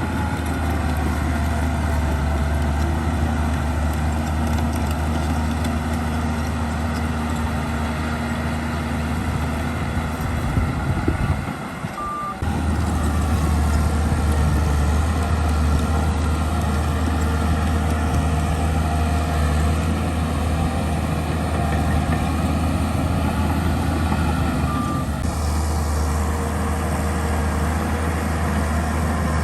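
Heavy diesel earthmoving machinery running steadily, its engine a deep continuous drone. The drone breaks off briefly about twelve seconds in, then resumes.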